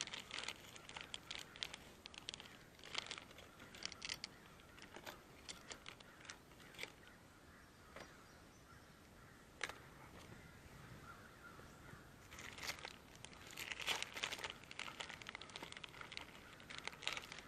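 A group of crows giving alarm caws in irregular bursts, mixed with crackling rustle close to the microphone; the calling eases off in the middle and is busiest near the end.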